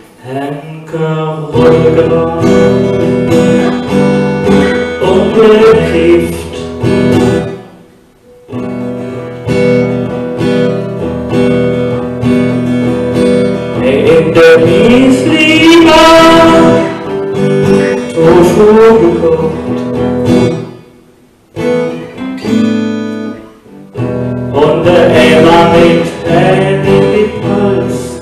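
Guitar played live as the accompaniment to a song, with a wavering melody line on top. The playing breaks off briefly about 8 and 21 seconds in.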